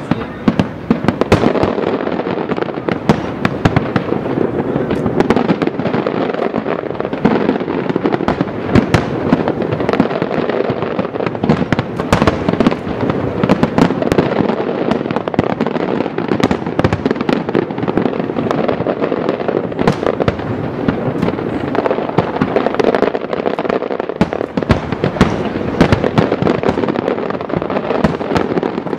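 A dense, unbroken barrage of aerial fireworks shells bursting: overlapping booms and crackles, many bursts a second with no pause.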